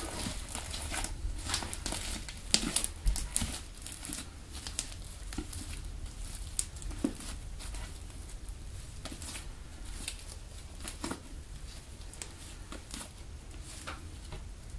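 Pink PVA-glue slime made with hand foam being pressed, stretched and folded by hand, giving irregular wet clicks and crackles, densest in the first few seconds.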